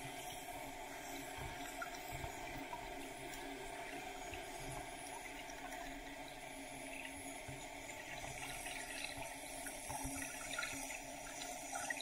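Water heard underwater through a sealed waterproof camera housing: a steady muffled hiss with scattered soft knocks and small crackles, more of them near the end.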